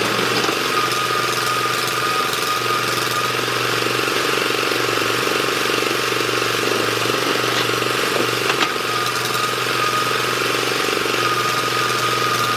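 Excavator's diesel engine running steadily under load, with a high whine that comes and goes and a single clank about eight and a half seconds in.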